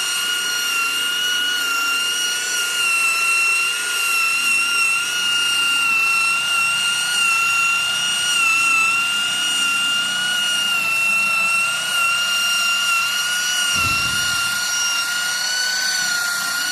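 Electric sanding machine sanding carved wood, its motor giving a steady high whine that wavers slightly in pitch as it bears on the work, with a brief low thud about fourteen seconds in.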